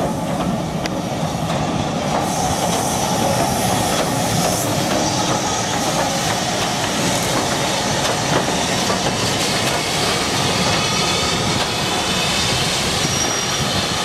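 Southern Railway U class steam locomotive No. 31806 running past with its train of coaches, a steady noise of moving train and steam.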